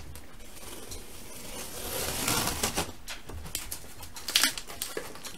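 Cardboard box being opened by hand: a rasping scrape of packing tape about two seconds in, then scattered knocks and rustles of the cardboard flaps, loudest about four seconds in.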